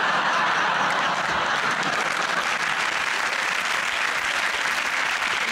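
Studio audience applauding, a dense steady clapping that holds at one level, in response to the host's joke.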